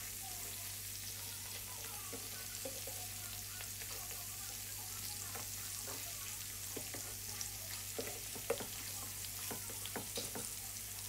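Marinated mutton chops sizzling in shallow oil in a pan, a steady frying hiss. Near the end come a few light knocks of a metal spatula or tongs moving the pieces.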